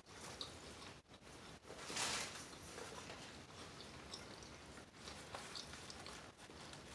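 Faint chewing and mouth sounds of a person eating, with a brief louder rush of noise about two seconds in.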